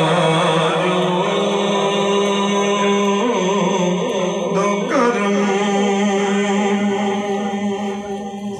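Man singing a naat into a microphone, unaccompanied, drawing out long held notes with slow slides in pitch. The singing softens a little near the end.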